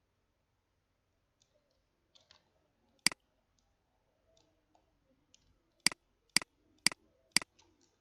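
Computer mouse button clicking: one sharp click, then a quick run of four clicks about two a second.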